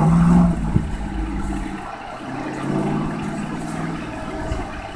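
Lifted truck's engine running as it churns through a flooded mud hole. It is loudest at the start and swells again about three seconds in.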